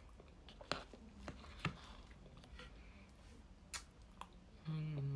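Close-mic eating of soft trifle: quiet wet mouth sounds with a handful of sharp clicks spread through, then a hummed "mm" of enjoyment near the end.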